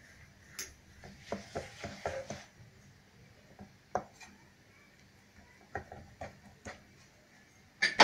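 Light clinks and taps of a steel spoon against a small steel oil bowl and of dough being handled on a metal rolling board, as oil is spread and the chapati folded. A cluster of taps comes about a second in, scattered single clicks follow, and the loudest knock comes near the end.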